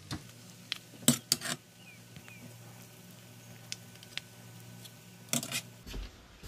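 A metal serving spoon clinking and scraping against the cooking pot as biryani is dished out: a quick run of clinks about a second in, a few light ticks, and another run of clinks near the end, over a faint steady hum.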